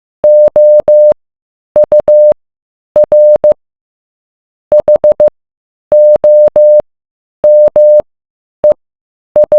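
Morse code sent as a single mid-pitched beep tone, keyed in short dots and longer dashes. The beeps come in about eight letter groups with silent gaps between them, and each beep starts and stops with a faint click.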